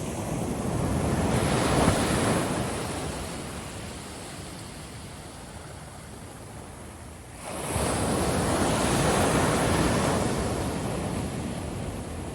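Ocean surf on a beach: one wave swells to a peak about two seconds in and washes away, then a second wave breaks suddenly past the midpoint and slowly drains back.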